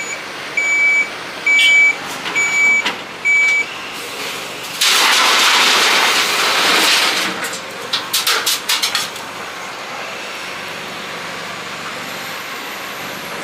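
A heavy vehicle's reversing alarm beeps five times, then a loud hiss of air of about three seconds, like an air brake being released. A few quick clatters follow, and then an engine running steadily.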